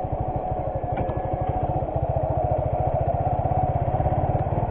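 Suzuki Gixxer 155's single-cylinder engine idling steadily, an even beat of about a dozen pulses a second.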